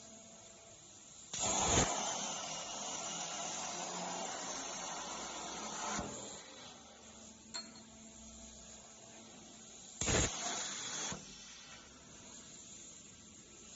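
CNC plasma cutting torch cutting metal tube: the arc fires with a sudden loud hiss and runs about four and a half seconds before cutting off. After a short click, it fires again for about a second.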